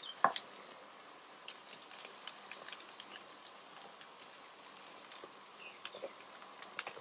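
Raw sweet potato sticks being set one by one onto a cast-iron griddle plate on a gas grill: soft, irregular taps and clicks, the sharpest about a third of a second in. A cricket chirps steadily behind it, about two high chirps a second.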